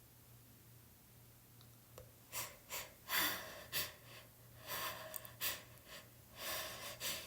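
A person with a cold taking a run of short, breathy gasps and breaths, starting about two seconds in: the hitching breaths that lead up to a sneeze.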